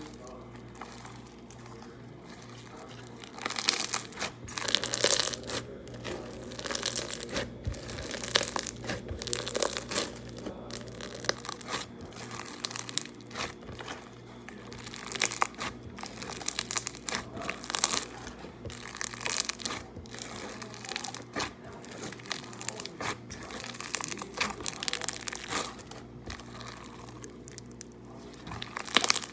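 Slime being squeezed, stretched and worked by hand, giving irregular bursts of crackling and crinkling from about three seconds in, over a steady low hum.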